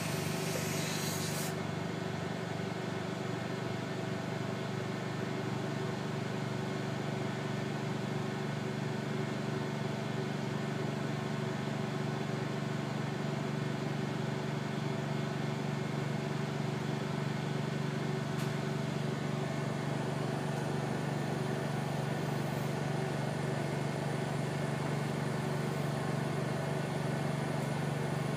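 The air compressor of a BD FACSCanto II flow cytometer's fluidics cart runs with a steady hum and hiss, on a cart whose pressure relief valve keeps opening. A sharper hiss of air stops about a second and a half in, and there is one faint click near the middle.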